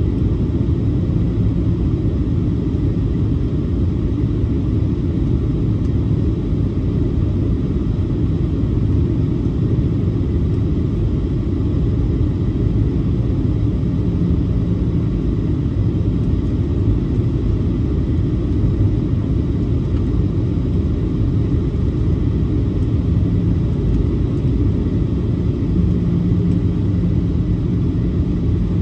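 Steady low rumble of a Boeing 737-700 in flight, heard inside the passenger cabin near the front: airflow and CFM56-7 engine noise. A faint low hum comes in briefly about halfway through and again near the end.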